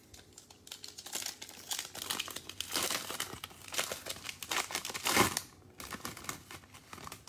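Plastic wrapper of a 2020 Panini Mosaic NFL trading-card pack crinkling and tearing as it is ripped open by hand, with the loudest rip about five seconds in.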